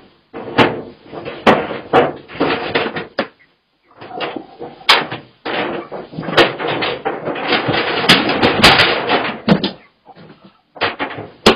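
Repeated knocks, bangs and clatter, with bursts of dense rattling between short dead-silent gaps.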